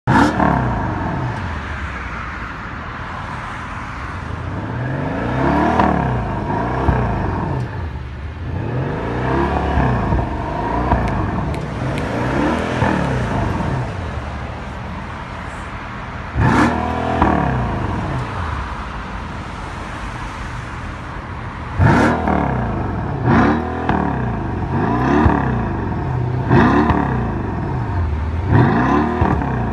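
Mercedes-AMG S63's twin-turbo V8 revved repeatedly while the car stands still, heard through a modified sport exhaust: about a dozen throttle blips that rise and fall over a steady running note. Sudden sharp bursts mark the very start, a little past halfway, and about three-quarters through.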